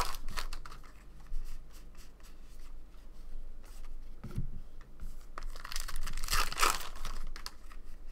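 Foil wrapper of a Topps Allen & Ginter baseball card pack being torn open and crinkled, with a louder crinkle about six to seven seconds in. Between the crinkles come small clicks of cards being handled and a soft thump about four seconds in.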